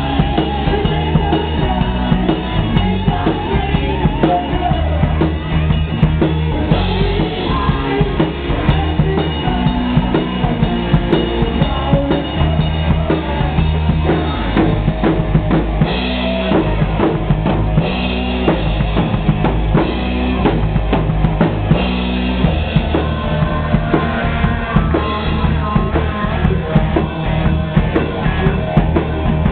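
Live rock band playing, with a full drum kit (bass drum and snare) driving the beat under electric guitar.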